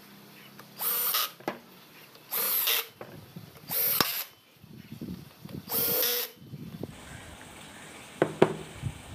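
Cordless drill-driver running in four short bursts of about half a second each, driving screws into a brush cutter engine. A sharp knock near the end.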